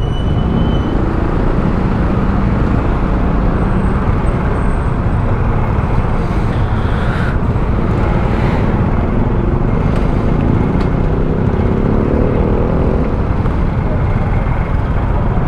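Honda XRM 125 motorcycle under way: its single-cylinder engine running steadily under a constant wind rush on the helmet-mounted mic.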